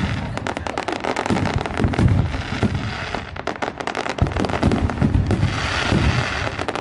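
Aerial fireworks going off in a dense barrage of crackling stars: a continuous run of rapid sharp cracks over repeated deeper bangs from the shell bursts.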